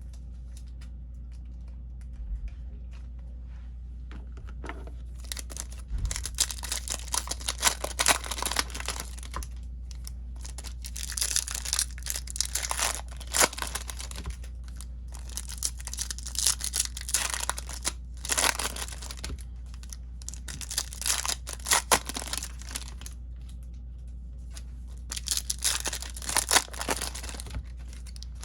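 Topps Chrome trading card pack wrappers being torn open and crinkled in repeated bursts, starting about five seconds in, over a steady low hum.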